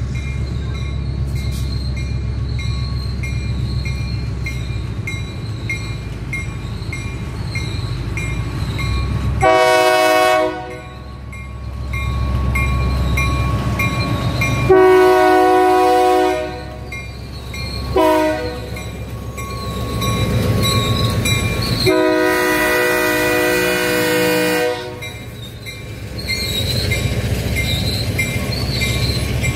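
Diesel switcher locomotive pulling covered hopper cars past, its engine running steadily while it sounds its multi-chime horn four times: a blast of about a second, one of about two seconds, a short toot, then the longest, nearly three seconds. This is the grade-crossing horn pattern. A bell dings in a steady rhythm underneath.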